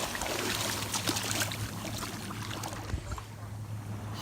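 Shallow ocean surf washing and swirling, a steady noisy wash that thins out toward the end, over a low steady hum.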